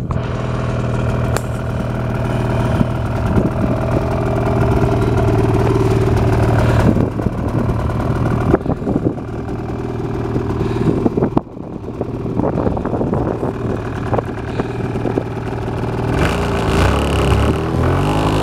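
Snowmobile engine idling steadily. Near the end its pitch swings up and down a few times.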